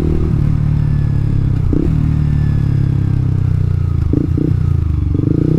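Yamaha R15 v2's single-cylinder engine running while the motorcycle is ridden. It breaks off briefly about two seconds in and twice around four seconds in, and gets louder near the end.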